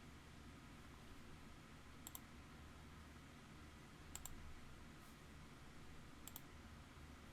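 Computer mouse clicking: three quick double clicks about two seconds apart, over faint steady room hum.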